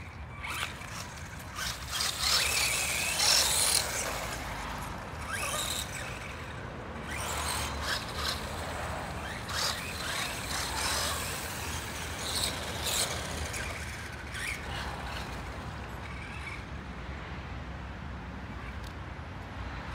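Small electric RC cars driving on rough asphalt: tyres and grit hissing, motors whining up and down with the throttle, and scattered knocks and clicks. It is loudest about two to four seconds in.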